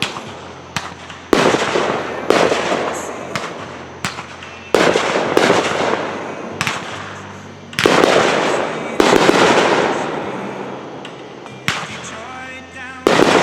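Aerial fireworks bursting overhead: a string of sharp bangs, the biggest roughly one a second, each trailing off in a long rolling echo, with a few smaller pops between.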